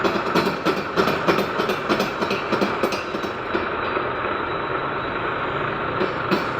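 Metalworking lathe running, a steady mechanical noise with rapid, irregular clattering knocks that ease off for a couple of seconds in the second half.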